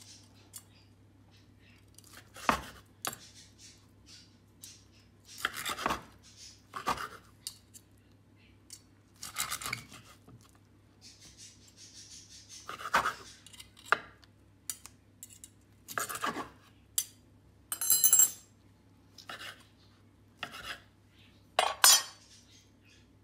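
Kitchen knife cutting a roasted chicken fillet on a wooden cutting board, the meat held with a fork: irregular scrapes and knocks of the blade on the wood, with light metal clinks of cutlery.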